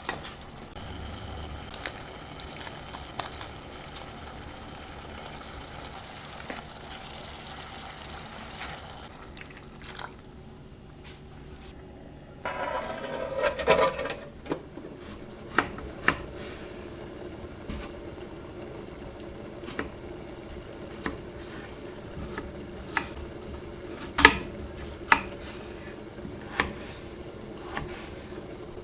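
Minced meat frying in a pot and being stirred, with the spoon knocking against the pot now and then. A louder stretch of stirring or liquid noise comes about halfway through.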